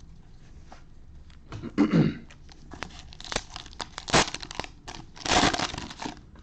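Plastic cello-pack wrapper of a trading card pack crinkling and being torn open by hand. The sound comes in irregular bursts and clicks, with the longest, loudest tear between about five and six seconds in.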